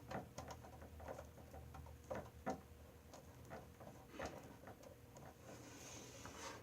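Faint, irregular small clicks and taps of a VGA cable plug being handled and its thumbscrews screwed in by hand on the back of a DVR.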